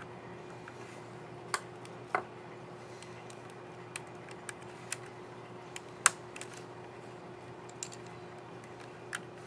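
Scattered sharp plastic clicks of a laptop keycap and its scissor mechanism being fitted and pressed on an HP Pavilion 17 keyboard, about nine in all, with the loudest about six seconds in, over a faint steady hum.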